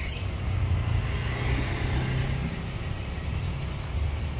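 Street traffic: a low vehicle rumble with road hiss that swells from about a second in and eases after two and a half seconds, as a vehicle passes.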